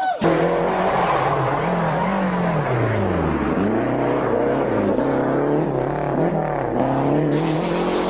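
Rally car engine revving hard, its note rising and falling over and over, with a deep drop and climb about three and a half seconds in. A rough tyre and road noise runs underneath. It starts suddenly and cuts off just at the end.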